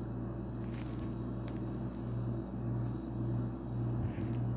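A steady low hum under a light hiss, which starts pulsing about twice a second from about halfway through, with a few faint clicks.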